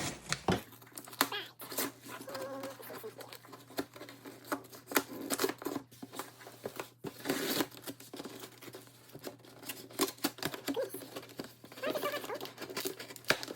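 Cardboard box and packaging being opened by hand: irregular rustling, crinkling and tearing with many sharp clicks and scrapes.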